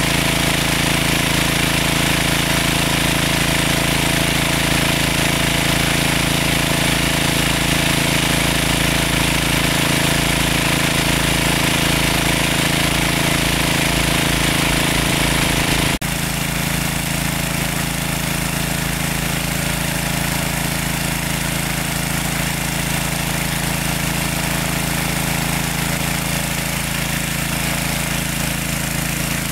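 Engine-driven water pump running steadily, pumping water out of a lake. Its sound changes abruptly and turns a little quieter about halfway through.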